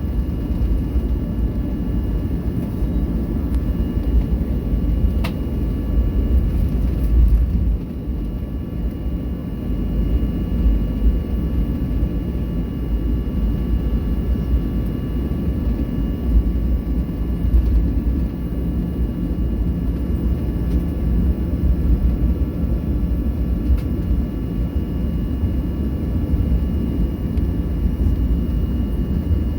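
Boeing 737-800's CFM56-7B jet engines running steadily, heard inside the cabin: a low rumble under a steady whine of several high tones. A single brief click about five seconds in.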